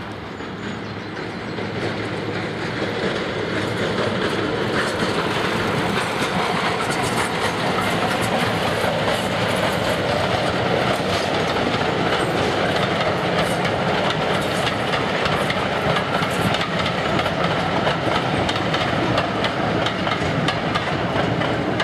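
A heritage passenger train's coaches rolling past, wheels clicking steadily over the rail joints. The sound swells over the first few seconds and then holds.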